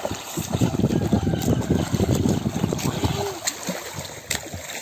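Water splashing and churning, loudest over the first three seconds and easing off near the end, with a brief voice about three seconds in.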